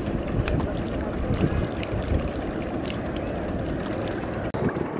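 Wind buffeting the microphone with a steady low rumble, over water splashing and dripping from a bamboo-framed lift net being raised out of the river. The sound cuts out for an instant near the end.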